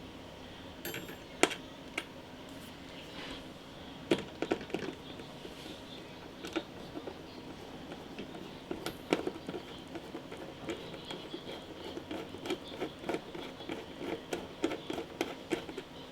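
Clicks and taps of plastic and metal computer parts being handled as a CPU cooling fan and its mounting bracket are fitted, over a steady faint hum. The taps are few at first and come thick and fast from about halfway through.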